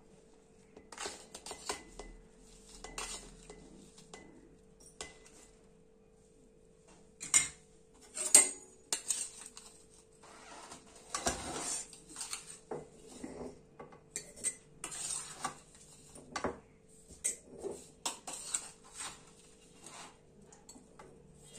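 A steel spoon scraping and clinking against a plate and a glass jar as chopped lemon and green chilli pieces are spooned into the jar, in irregular knocks and scrapes, with two sharper clinks about seven and eight seconds in.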